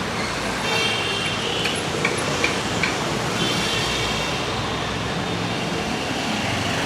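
Steady roadside traffic noise, with a few short high tones and a quick run of sharp clicks around the middle.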